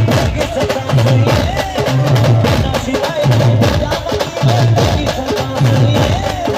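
A live band plays an instrumental passage between sung lines. A wavering melody line runs over a steady drum beat with wood-block-like percussion.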